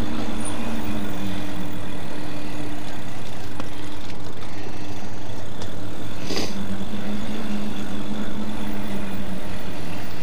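Custom electric bike under way on a dirt path: a steady motor whine over a constant rumble of tyre and riding noise, with one brief click about six seconds in.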